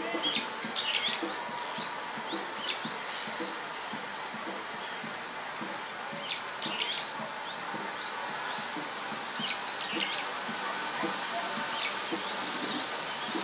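Small birds calling: short, high chirps at irregular intervals, a few at a time, over a faint steady background hiss.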